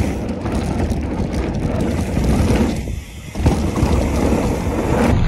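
Wind buffeting the microphone of a handlebar-mounted phone on a mountain bike riding fast down a dirt trail, over the rumble of tyres on dirt and rattling as the bike hits bumps. The noise eases briefly a little past halfway.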